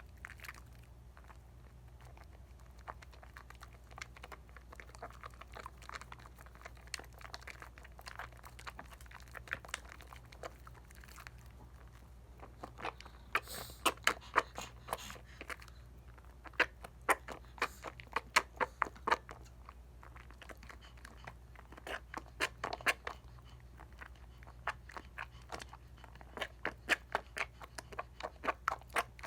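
Hands working a lather from a bar of Dial coconut soap: wet crackling and squishing of the foam in quick irregular runs, denser and louder from about halfway through and again near the end.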